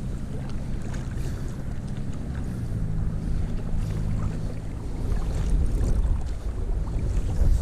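Wind rumbling on the microphone over water sloshing around a wading angler's legs, about waist-deep, getting louder near the end.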